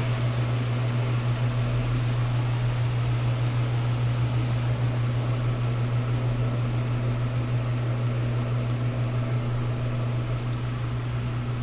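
Electrolux LT13B top-loading washing machine running, a steady low motor hum over an even mechanical whir with a slight regular pulsing.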